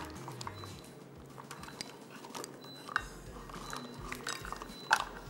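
Faint clicks, taps and light scraping of a measuring spoon against a bowl as dry baking ingredients are spooned in, with two sharper clicks about three and five seconds in. Soft background music underneath.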